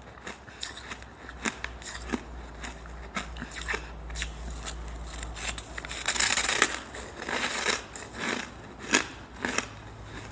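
Packed balls of shaved ice being bitten and chewed: a run of crisp crunches and crackles, densest about six seconds in.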